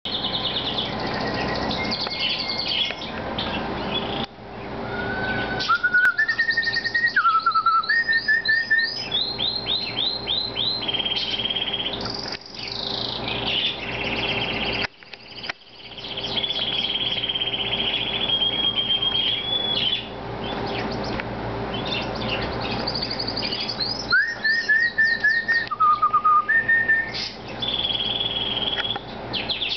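A roomful of caged pet birds chirping and singing over one another, with rapid high trills and chirps. A clear phrase of stepped whistled notes comes about five seconds in and again near twenty-five seconds. A faint steady hum runs underneath.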